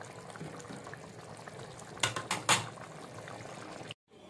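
Dal and meat simmering in a metal pan with a soft, steady bubbling, and a spatula knocking against the pan three or four times about two seconds in. The sound cuts off suddenly near the end.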